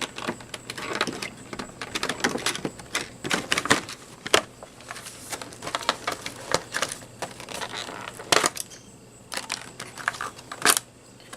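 Hands working plastic packaging and twist ties: irregular clicks, crinkles and small knocks of plastic, with a quieter stretch about nine seconds in.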